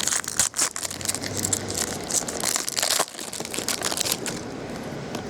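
Crinkling and rustling of a foil trading-card pack wrapper and cards being handled, busiest in the first three seconds, then quieter.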